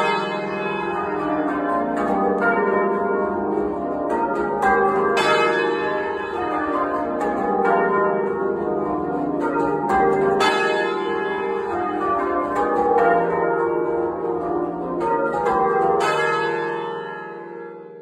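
A church's full-circle ring of bells ringing rounds, heard close up in the belfry: a steady run of overlapping bell strikes. The striking stops about sixteen seconds in, and the bells' ringing tones die away.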